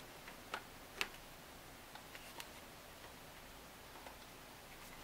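A few small, sharp clicks and taps of hard plastic as the black housing of a sewing-machine foot controller is handled and the cord's strain relief is worked into it; the loudest click comes about a second in.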